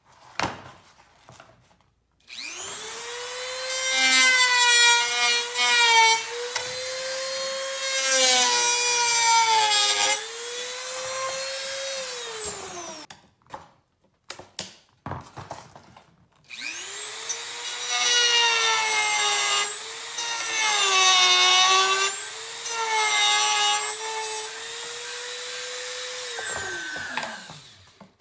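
Dremel rotary tool with a cutting wheel, cutting through a rear-compartment rail in two runs of about ten seconds each. Each time the motor whines up to speed, its pitch sags and wavers as the wheel bites, then it winds down.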